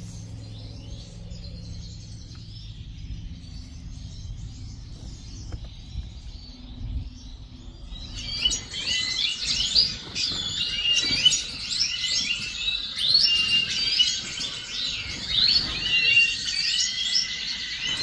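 European goldfinch singing: faint chirps at first, then from about eight seconds in a loud, fast, liquid twittering song with quick trills and short held notes.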